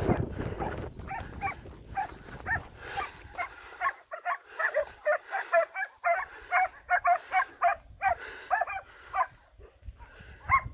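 Hunting dogs barking in quick, repeated calls, sparse at first and coming thick and fast from a few seconds in, as the pack works the scrub on a wild boar drive.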